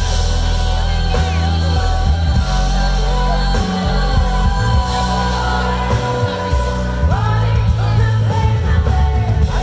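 Live band music with a singer, amplified through outdoor PA speakers, with a steady bass line under held instrument notes.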